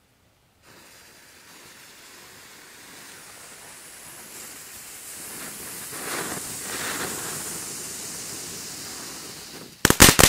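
Small flashing fountain fireworks hissing as they spray sparks, the hiss building over several seconds. Near the end, loud rapid crackling breaks out: the fountains' crackling effect.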